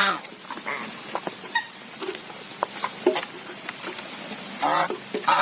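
A flock of white domestic geese feeding from a basin of mash, with rapid pecking and clattering of bills in the feed. A goose honks at the start, and a few more calls come near the end.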